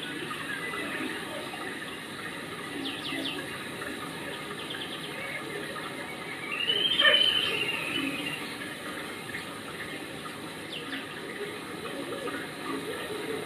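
Steady rain and running water, with one brief high-pitched call that rises and falls about halfway through.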